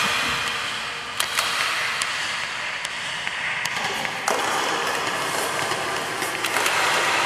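A steady rustling hiss with scattered sharp clicks and crackles, like something being rubbed or crumpled, made as a live sound effect.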